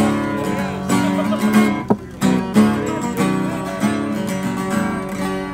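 Background music: an acoustic guitar strumming chords, with no singing.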